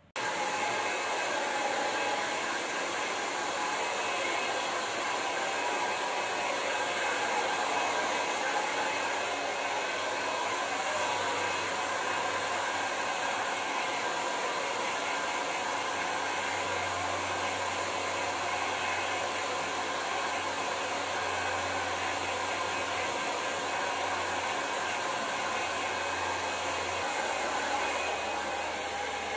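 Handheld hair dryer blowing steadily as long hair is dried, cutting in abruptly at the start and running at an even level throughout.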